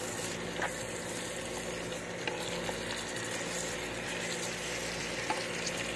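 Soy-and-pepper-marinated beef chunks sizzling steadily as they sauté in butter with onion and garlic, turned with a wooden spatula, with a few faint clicks.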